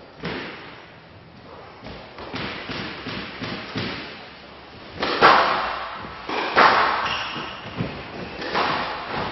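Squash ball hit hard by rackets and smacking off the court walls during a rally. The hits come every second or two, light at first and loudest a little past halfway, each with a short echo in the hall.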